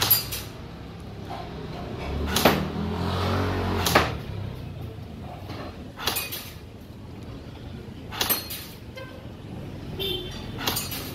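AK-style BB rifle being fired shot by shot, a sharp crack every second or two, about seven in all, with a low rumble underneath that swells between the second and third shots.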